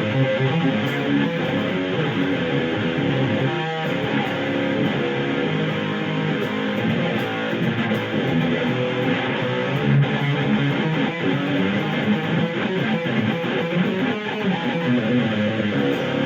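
Schecter Demon-6 electric guitar played continuously through a Boss DS-1 distortion pedal pushed by a boost, giving a heavy high-gain metal tone.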